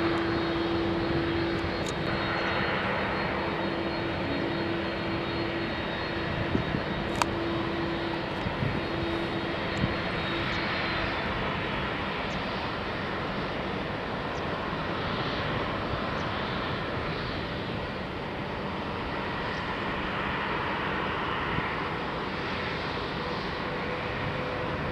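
Jet airliner engines running: a steady rush of engine noise with held whining tones that drop away about ten seconds in.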